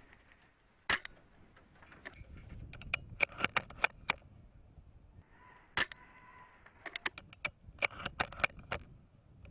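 Irregular sharp clicks and snaps, one about a second in and then in quick clusters through the rest, with a faint held tone in between.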